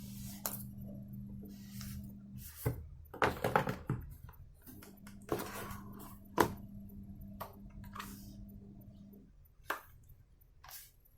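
Hands handling packaging and accessories: scattered taps, clicks and short rustles, the sharpest a few seconds in and again midway. A steady low hum runs beneath and stops about nine seconds in.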